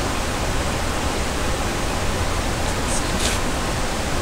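Rushing river water, a steady, even roar of flowing current and rapids.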